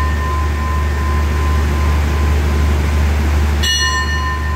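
A station bell is struck once about three and a half seconds in and rings on with a clear, slowly fading tone. The ring of a strike just before is still dying away at the start. Under it runs the steady low hum of the train's idling diesel. The bell goes with the green lamp shown for the train's departure.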